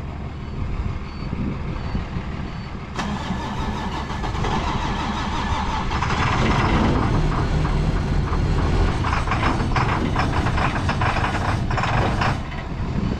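International engine being cranked over and over, struggling to catch. It is hard starting after sitting, which the owner puts down to air getting into the fuel.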